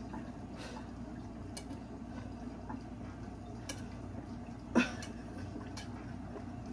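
Steady low room hum with a few faint clicks, and one sharp knock a little under five seconds in.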